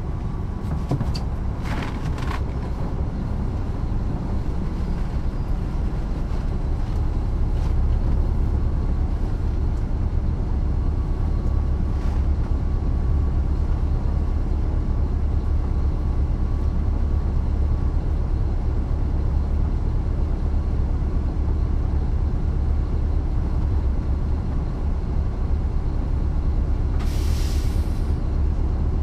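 The Caterpillar C13 ACERT diesel engine of a NABI 416.15 transit bus, heard from the back seat inside the cabin, running with a steady low drone that grows slightly louder about eight seconds in. Near the end comes a hiss of compressed air lasting about a second.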